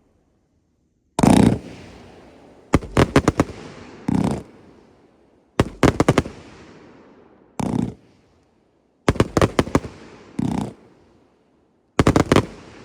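Fireworks cakes firing in a repeating pattern. A quick volley of four or five sharp bangs is followed about a second later by a single louder boom, and the pattern comes round every three to four seconds. Each volley trails off in a long echoing rumble.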